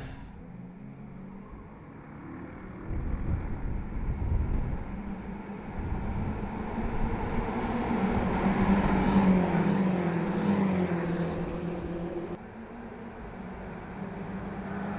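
BMW X6 M's twin-turbo V8 pulling hard, its note building, rising and falling, then dropping abruptly about twelve seconds in before climbing again.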